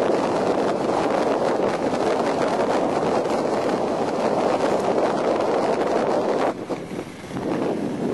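Wind rushing over the microphone of a camera carried by a skier moving downhill, a loud, steady rushing noise that drops away for about a second near the end.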